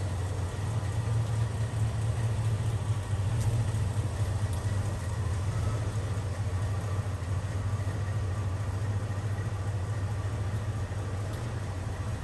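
1988 Jeep Grand Wagoneer's 360 V8 idling, a steady low rumble with no change in speed.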